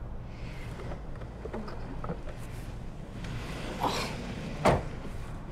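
Things being handled and set down in an SUV's open boot: scattered light knocks and clatters, then one sharp thump near the end, over a steady low hum.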